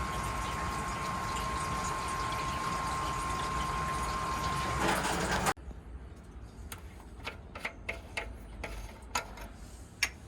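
Grundfos SCALA2 water booster pump running, with water rushing through it as a steady hiss under a thin, steady whine. The sound cuts off suddenly about halfway through, leaving only faint clicks.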